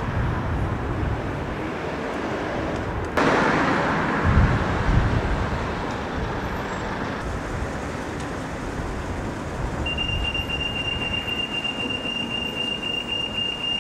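Road traffic noise that gets suddenly louder about three seconds in, with a low rumble soon after. About ten seconds in, a steady high-pitched beeping tone starts and keeps going.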